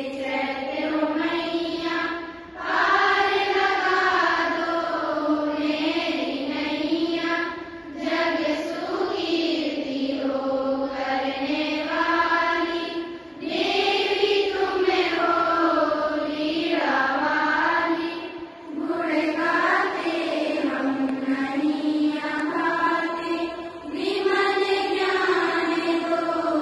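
A large group of schoolgirls chanting a prayer in unison. The melody rises and falls in phrases of about five seconds each, with brief pauses between them.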